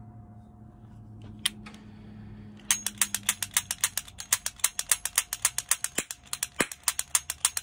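Replica cap revolver's mechanism clicking: two single clicks, then, almost three seconds in, a fast even run of sharp clicks, about eight a second.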